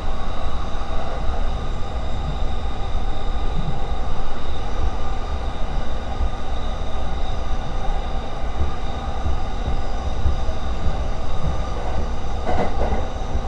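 JR East E231-series commuter train running over a steel truss bridge, heard from inside the car: a steady rumble of wheels on rail with faint steady tones over it.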